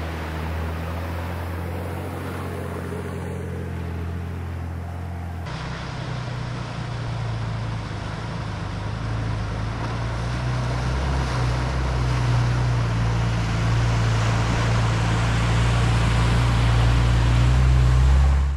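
A vehicle driving: steady low engine hum with road noise. The sound changes abruptly about five seconds in, then grows gradually louder toward the end.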